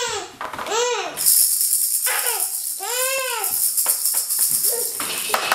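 A child's high squeals of laughter, and from about a second in a rapid, hissing rattle like a shaker being shaken, lasting about four seconds and louder than the squeals.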